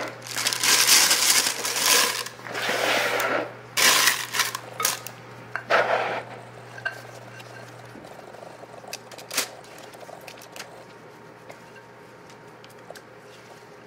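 Clear disposable plastic piping bag rustling and crinkling in four or five loud bursts as it is opened and folded over a piping-bag stand, followed by only faint clicks and taps as batter is spooned into it.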